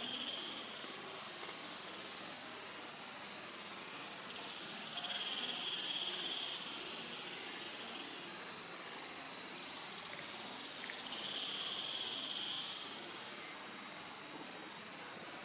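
Insects, cricket-like, trilling in a steady high-pitched chorus, with a second, lower trill that comes in for about a second roughly every six seconds.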